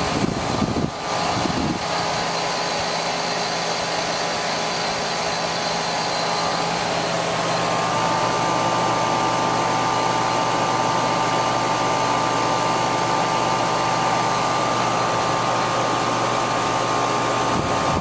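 Rheem RANL 4-ton central air conditioner condensing unit running steadily, its compressor and condenser fan giving a constant hum and whir with a faint high tone. It is running with a correct refrigerant charge at about 10 degrees subcooling, and the installer calls it nice and quiet.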